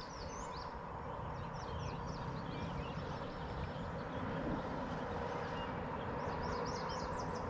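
Small birds chirping and twittering over a steady low background hum, with one sharp click at the start.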